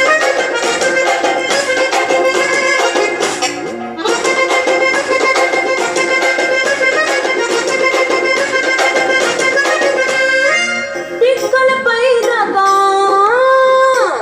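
A song played through a ZIPP 10ZSM2 4-inch midrange speaker as an audio test, thin with little bass; an instrumental passage gives way to a gliding sung melody about eleven seconds in.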